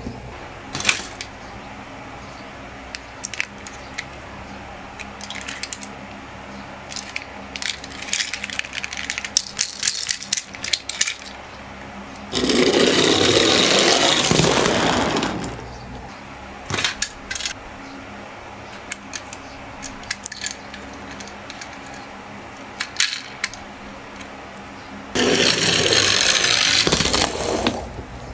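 Toy minicars of an ambulance and a bus rolling down a slope: two runs of rolling rumble, each about three seconds long, about halfway through and near the end. Between them come light clicks and clacks of the toys being handled and set down.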